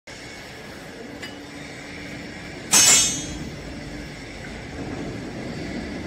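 Vertical hydraulic baling press with its steady machine hum, and a single loud, sharp metallic screech and clink about three seconds in as a steel strapping rod is worked through the slots of the pressed bale, ringing briefly before it dies away.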